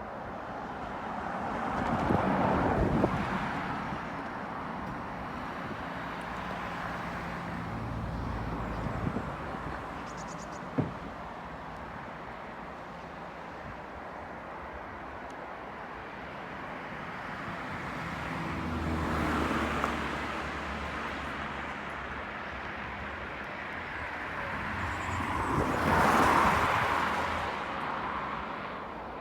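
Outdoor background noise with vehicles passing three times, each one swelling up and fading away over a few seconds, the last one the loudest.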